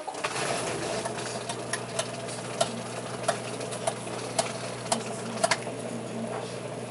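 Electrolux LTE09 top-load washing machine running: a steady motor hum with a short sharp click about every half second.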